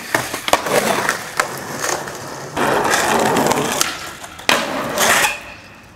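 Skateboard tricks on concrete: sharp clacks and impacts of the board, with stretches of its wheels rolling over pavement, and a loud hit about three quarters of the way in.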